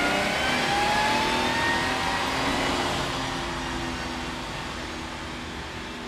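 An engine running hard with its pitch sliding, loudest about a second in and then slowly fading away.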